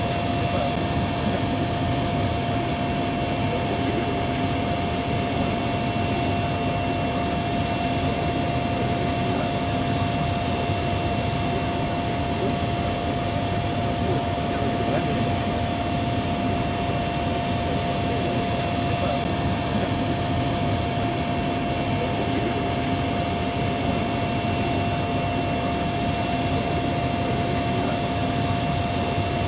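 Steady jet-turbine whine and rush from the parked Airbus Beluga XL, holding two constant high tones at an unchanging level while its upper cargo door is open.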